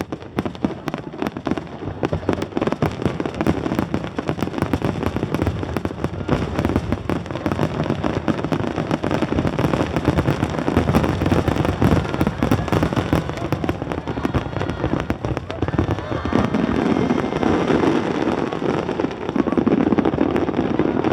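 Fireworks finale barrage: a dense, continuous stream of shell bursts and crackling, with many bangs overlapping.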